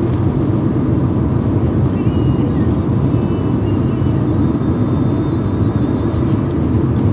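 Steady rumble of a car driving at highway speed, heard from inside the cabin: road, engine and wind noise.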